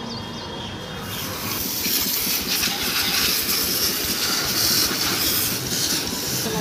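Water jet from a hose spraying onto a motorcycle's front wheel and bodywork, a steady hiss that starts about a second in and grows louder.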